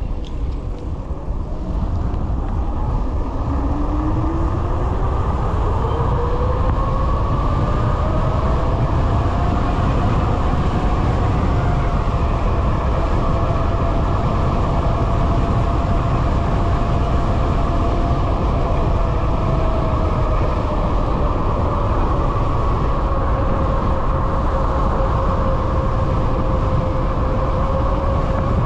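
High-power QS273 electric hub motor whining under load, its pitch rising steadily as the e-bike accelerates over the first ten seconds or so, then holding at speed and easing down a little later on. A heavy wind rumble on the microphone runs underneath.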